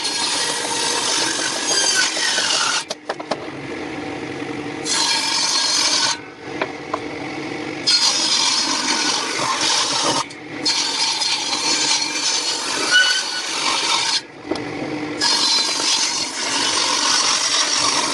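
Wood being cut or shaped with woodworking tools: a steady rasping, sawing sound in several stretches a few seconds long that start and stop abruptly.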